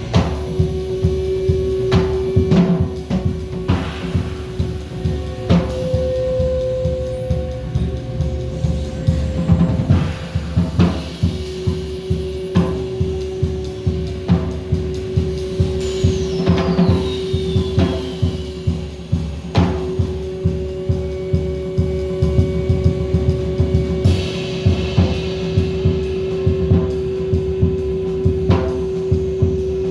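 Music with a drum kit playing a steady beat over long held tones.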